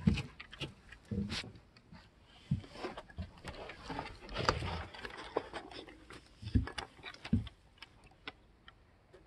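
A dog gnawing on a chew: irregular crunches and wet mouth noises with sharp clicks of teeth.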